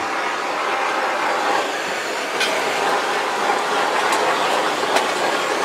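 Handheld canister gas torch burning with a steady flame hiss as it is swept over wet acrylic paint to pop air bubbles, with wind blowing on the microphone and a few sharp clicks.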